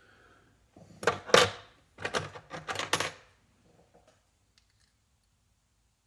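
Metal hand tools clinking and clattering, a burst of sharp metallic knocks about a second in and another cluster around two to three seconds in.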